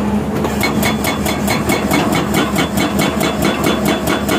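SSI S81 hydraulic rock breaker on an excavator hammering rock, its chisel striking at a fast, even rate of about six blows a second from about half a second in, over the steady running of the excavator's engine.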